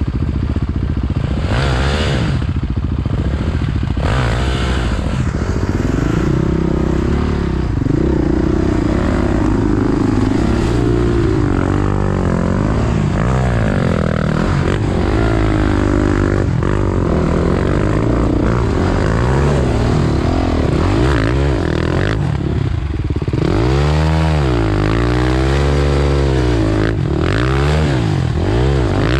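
Dirt bike engine under load on a steep, rough climb, its revs rising and falling again and again, blipped hardest near the end. Clatter and scraping from the bike over rocks and through brush.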